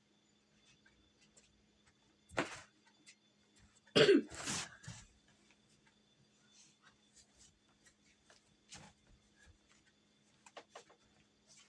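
A person coughing, the loudest coughs about four seconds in, with shorter single coughs before and after.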